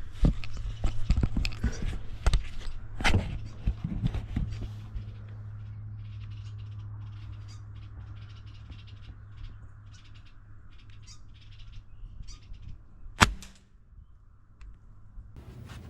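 Handling clicks over a low steady hum, then birds chirping, and about thirteen seconds in a single sharp crack: a shot from a .22 pellet gun.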